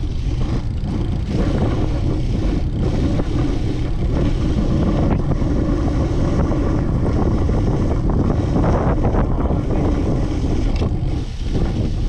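Wind rushing over the microphone of a camera on a moving bicycle, mixed with road noise from the tyres on wet pavement, with a few small knocks from bumps.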